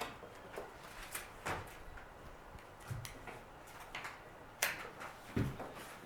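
A few scattered light knocks and clicks from hand work on the hinge template and jamb, with no power tool running.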